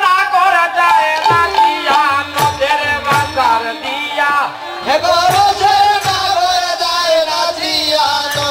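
Bengali kirtan music: a hand drum's bass strokes fall in pitch about twice a second, with sharp percussive hits, under a sustained, wavering melody line.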